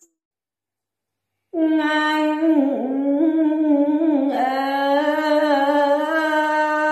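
A woman's solo voice singing Tày then, unaccompanied, in long held vowel notes with a wavering, bending ornament in the middle. It comes in after about a second and a half of silence.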